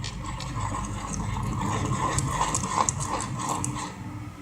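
Thickening slime being stirred in its container: a continuous irregular stirring noise with many small sticky clicks, the activator having just made the mixture set.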